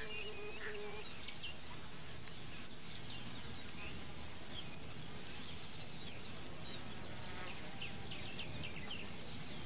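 Steady high-pitched insect chirring, with short runs of rapid pulsing trills in the second half and scattered faint bird chirps.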